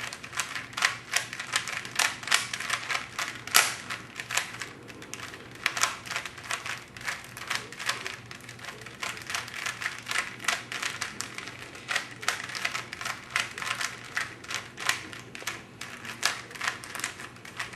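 Rubik's Cube being turned by hand: rapid plastic clicking and clacking as the layers are twisted, in quick runs of several turns a second with short pauses between them.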